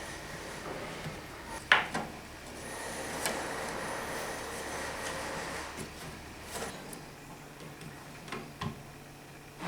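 Wooden pieces being handled: faint rubbing with a few light knocks, the sharpest about two seconds in.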